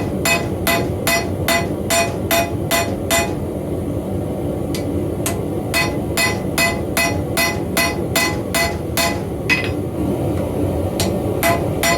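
Hammer blows on hot steel over an anvil, about three a second with a clear ring to each strike, pausing twice: an axe blade being drawn out by hand. A steady low rush runs beneath.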